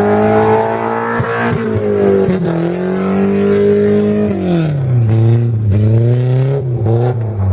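Volvo drift car's engine held at high revs on the ice, its pitch wavering, then dropping off about four seconds in, followed by a few quick throttle blips.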